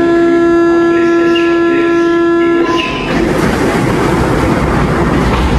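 MF88 Paris Métro train: a steady single-pitch warning tone sounds for about three seconds and cuts off, then the train's rolling noise takes over and builds with a low rumble.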